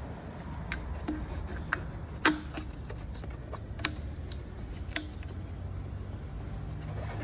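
Scattered sharp metallic clicks and clinks, about six over several seconds with the loudest a little over two seconds in, some ringing briefly: hand tools and engine parts being handled, over a low steady hum.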